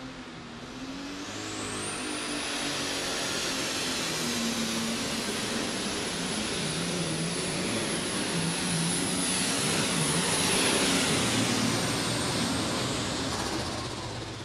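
Multi-turbocharged diesel engine of an International super stock pulling tractor running hard under load as it pulls the sled, its turbochargers whining up to a high, steady whistle over the engine noise. The whine and engine noise ease off near the end as the run winds down.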